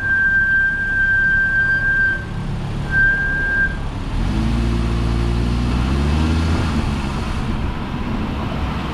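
Brakes of a new 2023 Audi RS Q3 squealing: one steady high-pitched tone, which breaks off about two seconds in and sounds again briefly about a second later. The owner is unsure whether this is normal. After that the engine's hum rises as the car pulls away, over road noise.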